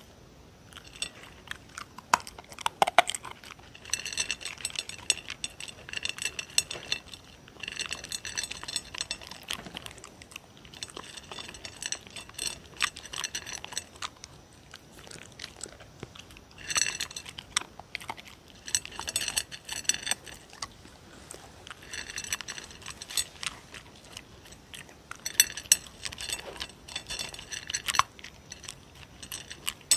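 A dog crunching and chewing dry kibble close to the microphone, in repeated bouts of a few seconds with short pauses between them.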